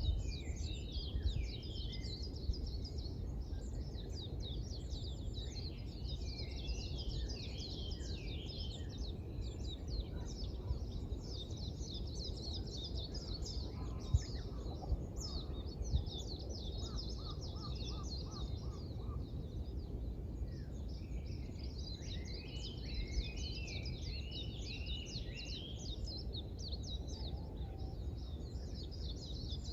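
Birds chirping and twittering continuously at sunrise: many overlapping quick high calls, with a short run of evenly repeated lower notes about halfway through. A steady low background rumble runs under them, with two brief knocks in the second half.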